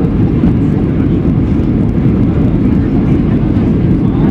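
Steady low rumble of a Boeing 737's jet engines and rushing airflow, heard inside the passenger cabin during the landing approach.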